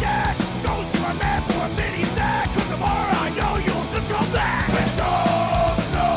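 Loud punk rock song: a band playing with yelled vocals over a steady drum beat.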